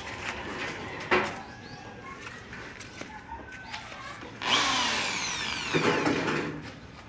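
An electric drill runs for about two seconds near the end, drilling a rivet hole through the sheet-metal gutter, its whine sliding down in pitch. A brief knock comes about a second in.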